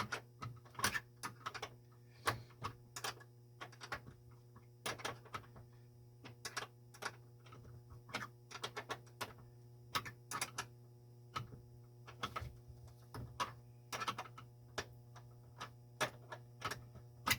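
Irregular sharp metallic clicks, two or three a second and sometimes in quick clusters, from a wrench working the nut on a refrigerator door hinge brace's bolt. A steady low hum runs underneath.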